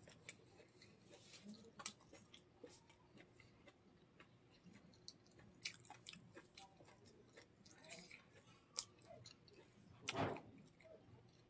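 Soft chewing and small wet mouth clicks of someone eating rice and curry by hand. About ten seconds in comes one louder, brief rustling sound as the fingers mix rice on a banana leaf.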